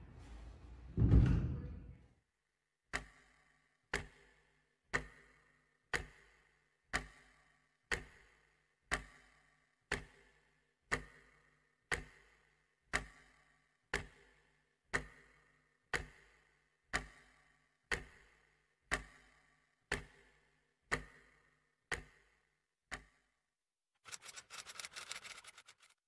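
A clock ticking once a second, about twenty ticks, each a sharp click with a short ringing tail. It opens after a loud, low swell of noise about a second in and is followed near the end by a brief rattling burst of noise.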